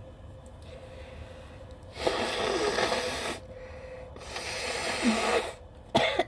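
A person's two long, noisy breaths through the nose, each lasting over a second, while trying to bring on a sneeze that is being stubborn. A short, sharp catch of breath comes near the end.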